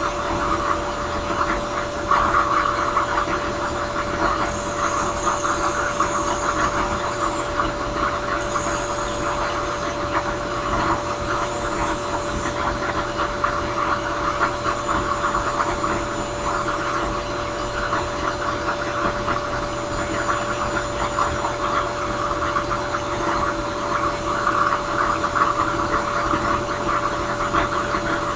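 Drill press spinning a sanding drum while a briar pipe bowl is pressed against it: a steady motor hum under the rasp of wood being sanded, which swells and eases as the pipe is worked against the drum. A faint high squeal comes and goes a few times in the first half.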